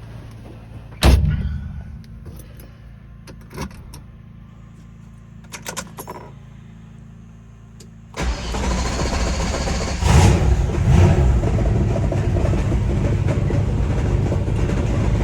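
A car door shuts about a second in, followed by a few clicks; about eight seconds in a car engine starts and keeps running, briefly revving just after it catches.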